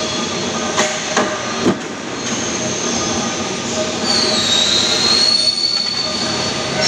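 Flywheel-driven mechanical punch press running steadily while aluminium scaffolding profiles are punched, with three sharp metallic clanks in the first two seconds. From about four seconds a high metallic squeal joins in and holds.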